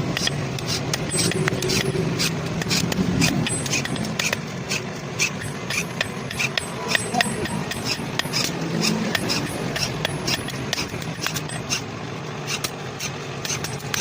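Many sharp metallic taps and clinks at an uneven pace, a few a second, over a steady workshop noise haze, typical of hand tools working metal. A low voice is heard faintly in the first few seconds.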